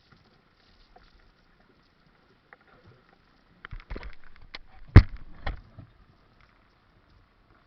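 A short flurry of knocks and thumps on a small fishing boat, with one sharp, much louder knock about five seconds in; faint before and after.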